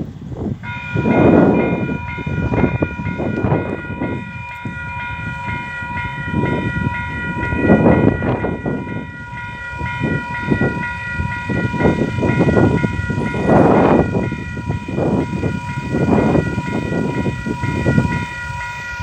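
Level-crossing alarm bell starting up within the first second and ringing on steadily with a fast, even pulse as the crossing warns of an approaching train. Wind gusts buffet the microphone.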